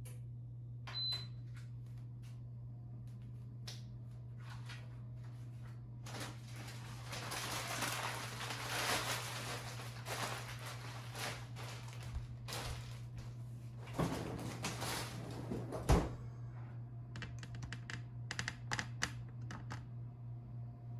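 Air-fryer toaster oven running at 450 with a steady low hum from its convection fan, and a short high beep about a second in. A hissing noise rises in the middle, two sharp knocks follow, and light clicks come near the end.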